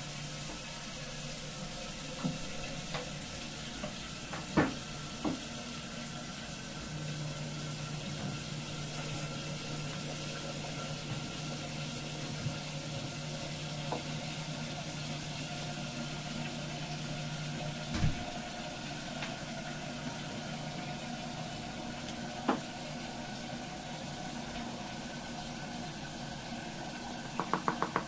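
Steady background hiss with a few light knocks and taps from hands and tools on the fondant and stone counter while fondant is smoothed over a cake. A low hum runs for about ten seconds in the middle, and a quick run of ticks comes near the end.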